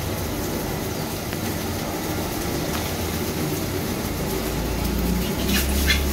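A steady low rumble with hiss that swells about five seconds in, then a few sharp metallic clinks and scrapes near the end as a steel spatula strikes and stirs a wok of fried rice.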